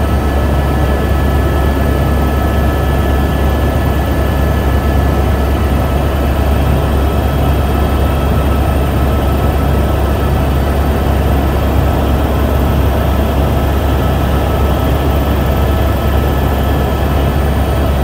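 Helicopter in flight heard from inside the cabin: a loud, steady low rotor drone with a constant whine of several steady high tones above it.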